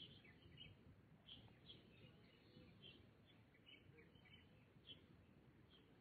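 Birds chirping: many short, high chirps scattered throughout, faint, over a steady low background rumble.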